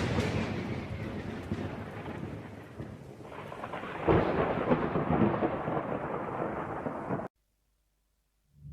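Thunder: a loud clap that rolls off into rumbling, then a second clap about four seconds in. It cuts off abruptly a little after seven seconds.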